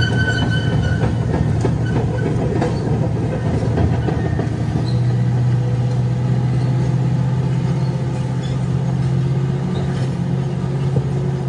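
Bulldozer's diesel engine running steadily with a deep hum, with scattered metallic knocks and clanks. The hum drops back for a couple of seconds early on, then returns strongly about five seconds in.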